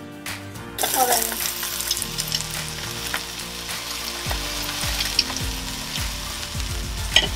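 Sliced carrots, onions and eggplant frying in hot oil in a sauté pan, sizzling steadily as they are turned with metal tongs, with scattered clicks of the tongs against the pan. The sizzle starts abruptly about a second in.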